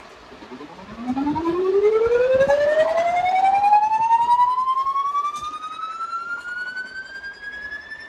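A siren-like tone winding up: one long note that starts low about a second in and climbs steadily in pitch, loudest near the middle.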